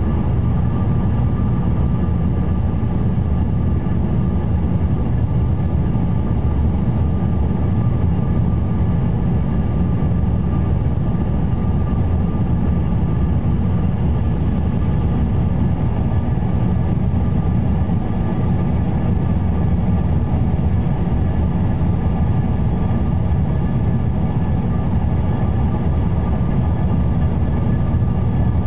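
Cabin noise inside a commuter jet on its descent to land: a steady, loud low rumble of the engines and rushing air, with a faint steady whine on top.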